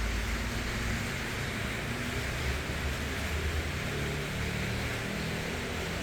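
Honglan 400 mm mini ceiling fan running: a steady rush of air with a low, wavering motor hum.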